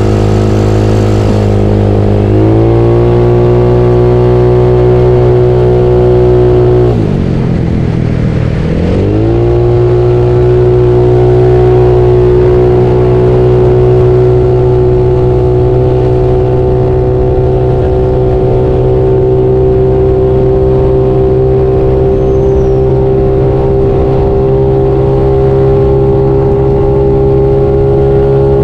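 Bored-up Yamaha Mio scooter engine running under way at a steady pitch, stepping up about two seconds in. Around seven seconds in the revs drop sharply and climb back within about two seconds, then hold steady.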